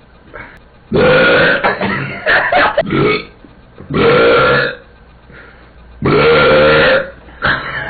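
A man belching loudly on purpose, several long pitched burps of about a second each, with shorter burps between them.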